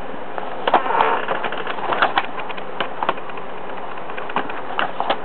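Pages of a soft-cover paperback manual being turned and handled: irregular light paper rustles and clicks over a steady hiss.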